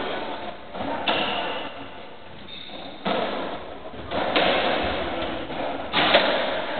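Racketball rally on a squash court: four sharp pops of the ball struck by rackets and hitting the walls, each ringing on in the court's echo.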